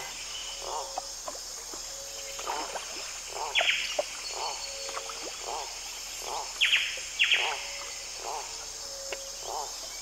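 Amazon rainforest wildlife chorus: a steady high buzz of insects, a lower call repeating every half-second to second, and short sharp downward-sweeping bird calls. The bird calls are the loudest part, once about 3.5 s in and twice close together around 7 s.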